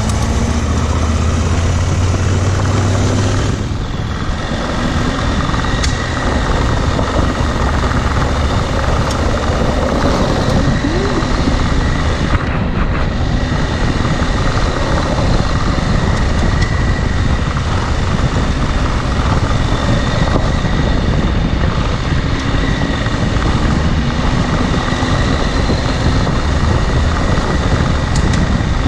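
Dual-sport motorcycle engine running under way, over heavy wind and road noise, easing off briefly about four seconds in.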